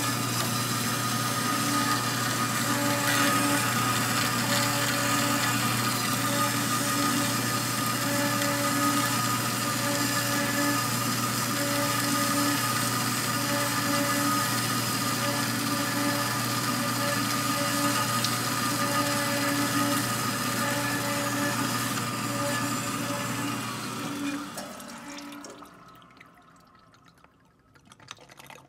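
Horizontal metal-cutting bandsaw running steadily at a reduced blade speed while sawing aluminium bar stock. About 24 seconds in it is switched off and winds down over a couple of seconds.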